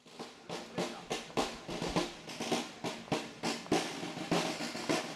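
Snare drums playing a steady marching beat, about three strokes a second, fading in at the start.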